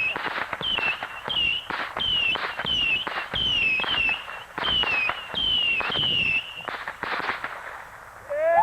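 Saturn missile battery firing in rapid succession: small rockets launching about two a second, each a short falling whistle with a sharp pop. The shots thin out and go quiet near the end.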